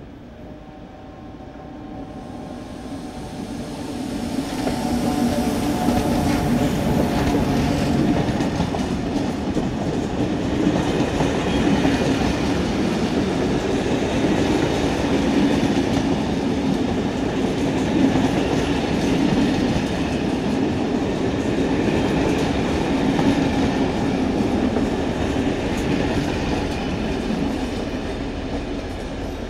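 A French SNCF electric locomotive and its train of passenger coaches rolling past. It grows louder over the first few seconds as the locomotive draws near, then the wheels keep up a steady running noise on the rails as the coaches go by.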